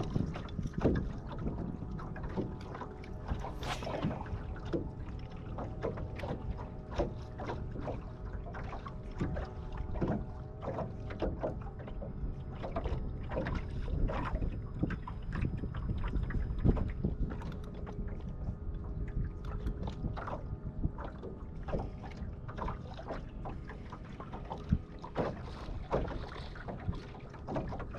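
Ambient sound aboard a fishing boat on open water: a steady low rumble of wind and water with a faint even hum, broken by many small knocks and clicks.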